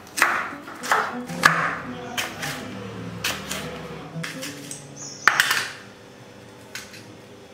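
A kitchen knife knocks on a wooden cutting board while carrot and green bell pepper are diced, giving a few irregular sharp chops over soft background music.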